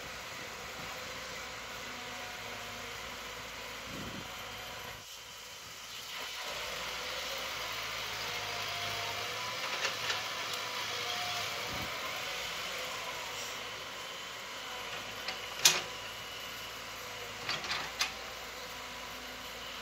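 Caterpillar 312B hydraulic excavator's diesel engine running steadily as the machine digs and swings, growing a little louder from about six seconds in. A few sharp clanks come near the end, the loudest first.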